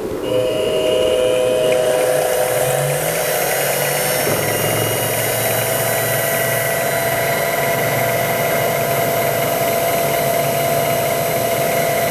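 Mini mill spindle running with a steady mechanical whine as a center drill cuts into a metal rod; the tone of the whine changes about four seconds in.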